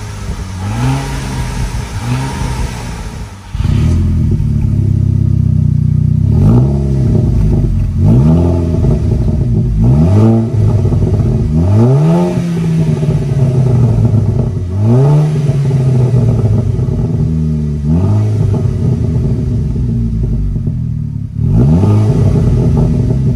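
VW Golf 6 GTI Edition 35's turbocharged 2.0-litre four-cylinder blipped twice through its stock exhaust. About three and a half seconds in, it is heard through a Cobra Sport Venom cat-back exhaust: a louder idle with about seven throttle blips, each rising then falling in pitch.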